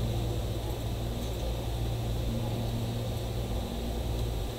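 A steady low machine hum with an even rushing hiss, like a fan or small motor running; the hum eases off slightly near the end.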